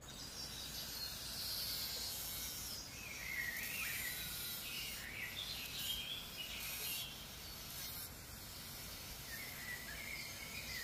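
Outdoor background noise with a steady hiss, broken by a few short bird chirps.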